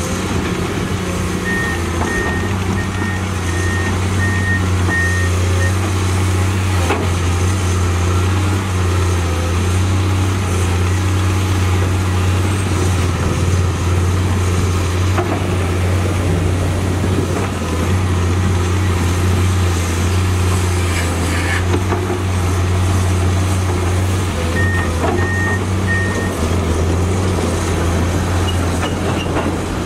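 Komatsu PC210 hydraulic excavator's six-cylinder diesel engine running steadily under digging load, a deep even hum. A back-up alarm beeps in a quick run of beeps in the first few seconds, and again in a shorter run near the end.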